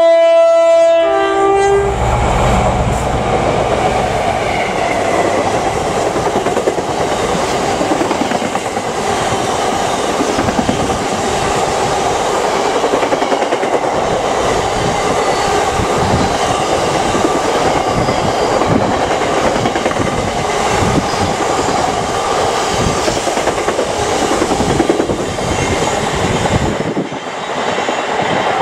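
A Class 60 diesel freight locomotive passes with a long train of bogie tank wagons. A brief horn blast ends about a second in, then comes a low engine rumble. After that, steady wheel-on-rail rolling noise with repeated clacks as the wagons go by, easing off near the end as the tail passes.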